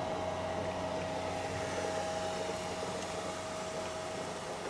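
Brown's gas (HHO) electrolysis generator running steadily at full power, producing about 1.8 litres of gas a minute: an even, airy hiss with a faint steady hum.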